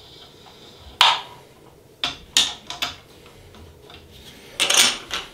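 Hands handling a 3D printer's bed and levelling hardware: a few short clicks and scrapes, one about a second in, a few around two seconds, and a louder scrape-and-click cluster near the end.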